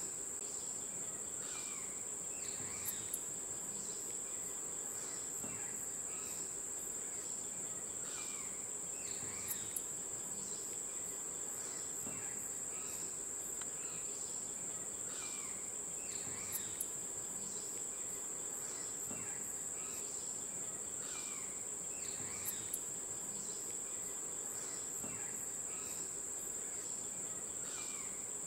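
Insects trilling in a steady, unbroken high drone, with short falling chirps repeating throughout and a few faint paired high clicks.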